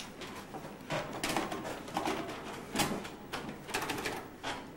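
Keys tapped on an electronic word processor's keyboard, giving irregular short clicks that come in quick clusters.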